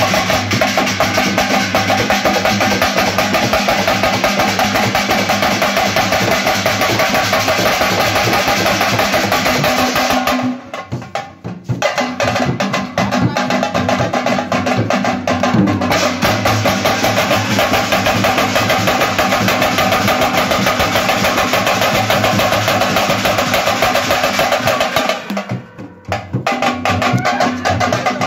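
Hyderabadi marfa drum group playing a fast, dense rhythm: barrel drums beaten with sticks and a steel pot struck with a stick. The drumming drops out briefly about ten seconds in and again near the end.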